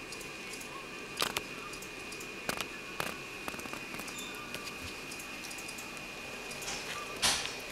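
Corgis tussling over a rope right at the microphone: a few scattered clicks and scuffs, with one louder, brief rustling burst near the end, over a steady hiss with a faint high tone.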